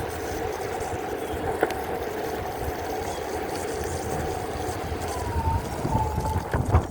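Steady engine hum over a low rumble and wind-like noise, with a faint wavering whistle about five seconds in.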